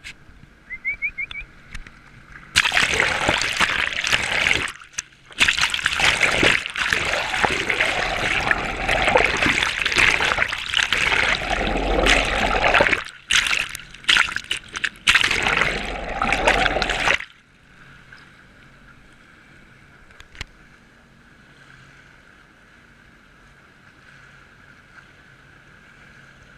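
Water splashing and rushing loudly over a GoPro held down in the sea beside a jet ski. The rush cuts out briefly a few times and stops about two-thirds of the way through, leaving a quiet, steady muffled hum.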